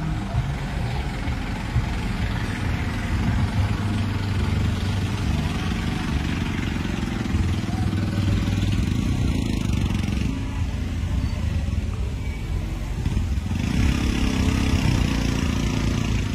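Engines of three-wheeled mototaxis and then cars driving slowly past in a procession, a steady low rumble. It grows louder about three-quarters of the way through as a van passes close.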